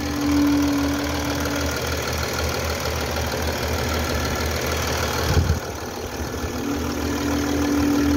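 Mercedes-Benz 320D diesel engine idling steadily, with a steady whine that fades out about two seconds in and comes back near the end. A brief low thump about five seconds in.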